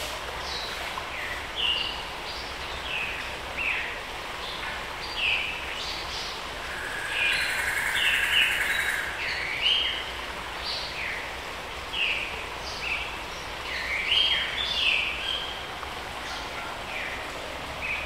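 Tropical forest birds calling over one another, many short down-slurred whistles overlapping above a steady background hiss. For about two seconds near the middle a louder, buzzier call stands out above the rest.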